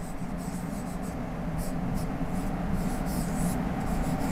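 A pen scratching on a writing board in a series of short strokes as a word is written out, over a faint steady low hum.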